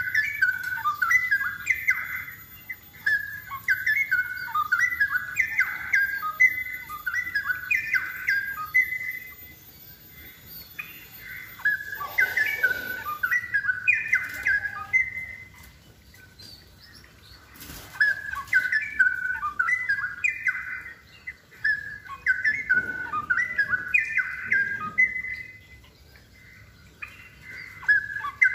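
Straw-headed bulbul (cucak rowo) singing in full voice: bouts of a few seconds each of rapid, rich warbled notes, broken by short pauses.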